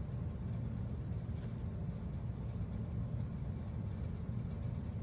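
A steady low background rumble, with a faint tick about one and a half seconds in.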